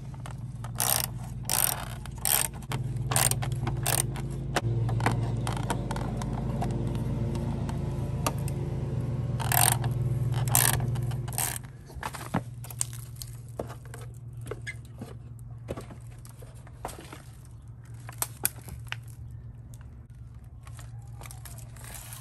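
Hand tools and metal parts clicking, knocking and scraping irregularly as clips and fasteners are worked off a rusty steel truck bumper, with two louder knocks about ten seconds in. A steady low hum runs underneath, stronger for the first half.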